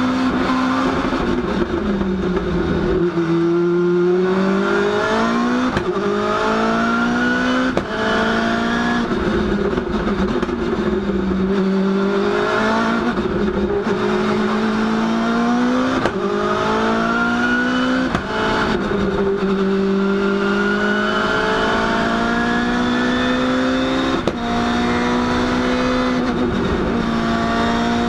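Ford Fiesta Pikes Peak race car's engine heard from inside the cabin, driven hard around a circuit. It revs up through the gears in repeated rising sweeps, and the pitch drops sharply at each quick gear change. Between the sweeps the revs fall back where the car slows for corners.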